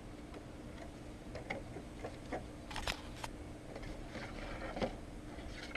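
Faint scattered clicks and light rustling as a kendama's packaging is opened and handled.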